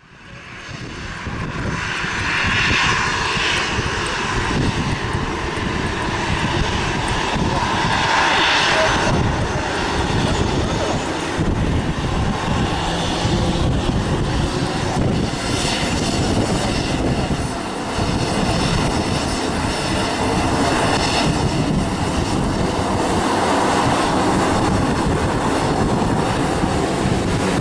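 Boeing 737-800's twin CFM56 turbofan engines running steadily on the runway: a loud, even jet roar and hiss. It fades in over the first couple of seconds.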